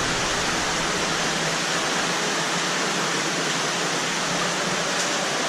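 Fast-flowing underground stream rushing through a cave passage: a steady, even rush of water.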